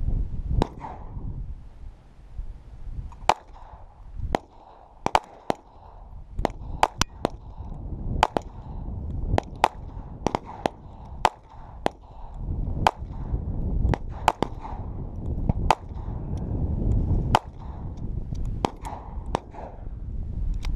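Walther P22 pistol firing .22 LR rounds in a string of sharp, irregularly spaced shots, some in quick pairs, each with a short echo. The pistol cycles through the magazine with no problem.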